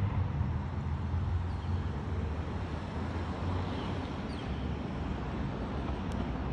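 Road traffic: a steady low rumble of cars driving along the street, a little louder in the first few seconds.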